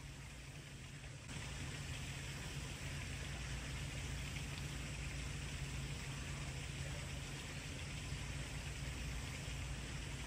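Steady outdoor background noise: an even hiss over a faint low hum, stepping up slightly about a second in and then holding level.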